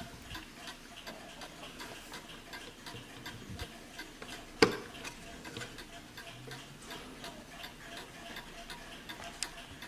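Warmink Wuba mantel clock movement ticking steadily, with no chime striking. A single sharp knock a little before halfway stands out louder than the ticks.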